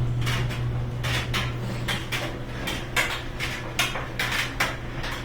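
GE electric dryer tumbling a load, its motor humming steadily, with a zipper on the clothes clinking and knocking about irregularly, two or three times a second. The metal sound is only the zipper, not the newly replaced front drum bearing.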